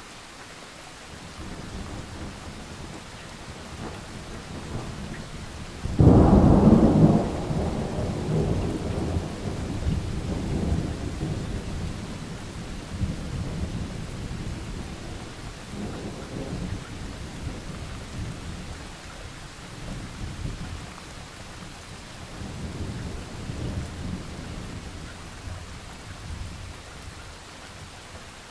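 Thunder during a rainstorm: a low rumble builds, then a sharp crack about six seconds in, the loudest moment, is followed by long rolling rumbles that swell and slowly die away over steady rain.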